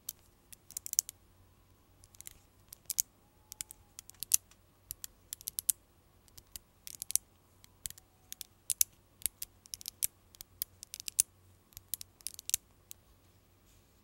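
5 mm magnet balls clicking and snapping against one another as rings of balls are pressed together into a triangular cluster. The clicks are sharp and irregular, some single and some in quick clusters.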